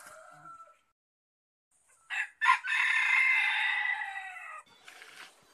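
A rooster crowing: two short notes about two seconds in, then one long held note that sags slightly in pitch and breaks off after about two seconds.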